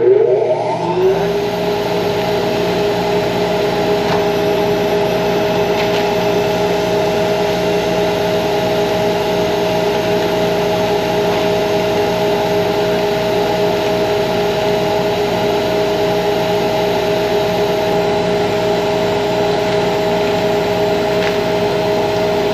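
2 HP Harbor Freight dust collector blower coming up to speed in the first second, then running steadily with a loud hum and whine, drawing wood chips up a suction hose through a cyclone separator.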